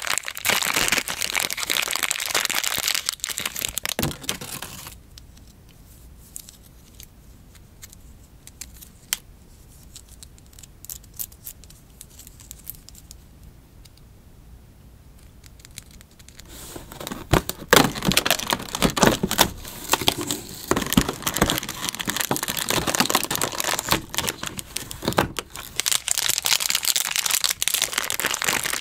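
Red plastic wrapper crinkling and tearing as fingers pull it open. About five seconds in it goes quiet apart from scattered small clicks as a small plastic mini figure is handled, and the crinkling starts again about halfway through and runs on.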